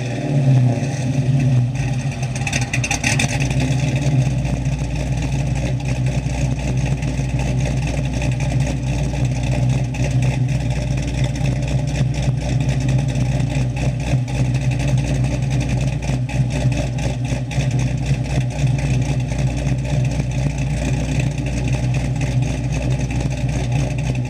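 2004 Pontiac GTO's 5.7-litre LS1 V8, fitted with a Futral F14 camshaft and a full exhaust, idling steadily at the tailpipes.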